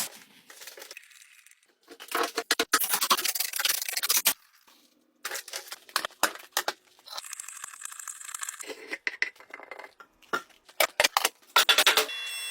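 Irregular bursts of scraping, rubbing and light clattering from work on wooden pieces, with short pauses between them.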